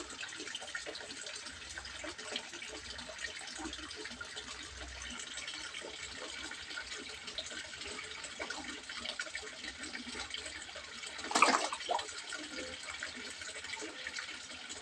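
Water trickling and splashing steadily into a fish pond, with a brief louder burst of splashing about three-quarters of the way through.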